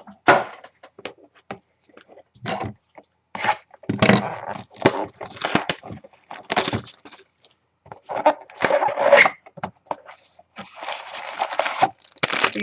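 Cardboard trading-card boxes and their packaging being handled and opened by hand: irregular scraping, rustling and tearing noises with occasional sharp clicks.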